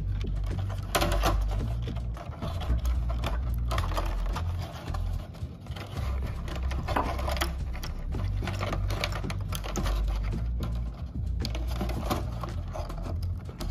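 Handling noise from servo wires and a 3D-printed plastic model-airplane fuselage being worked by hand on a table: irregular clicking, rubbing and light knocks over a low rumble.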